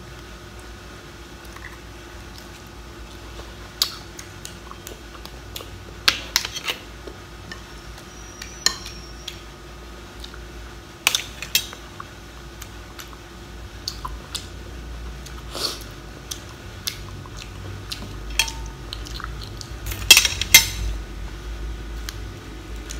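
Crab claws being cracked and eaten close to the microphone: scattered sharp cracks and clicks of shell and dishware, the loudest cluster near the end.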